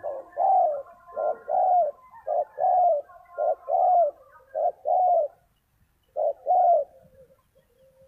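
Spotted dove cooing: about six repeated two-note phrases, each a short coo followed by a longer falling coo, with a pause of under a second near the middle.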